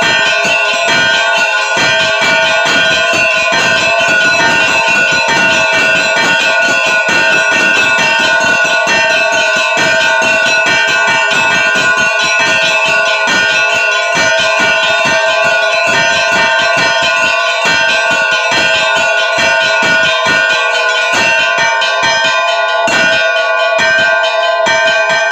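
Russian Orthodox church bells ringing loudly, many bells struck in quick succession over their steady ringing tones: the peal that calls the faithful to the All-Night Vigil.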